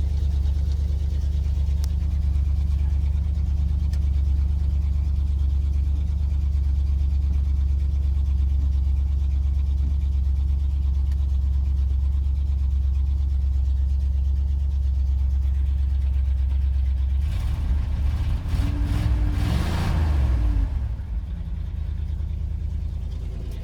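1971 Ford F-250's engine running at a steady idle shortly after a cold start in sub-freezing weather, with the choke pulled well on. About seventeen seconds in, the sound rises and falls for a few seconds, then settles to a quieter idle.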